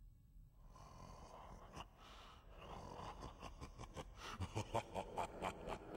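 A large demon beast's rasping, heavy breathing and growling that starts about a second in and builds into quick, rhythmic panting of about three to four breaths a second over the last two seconds.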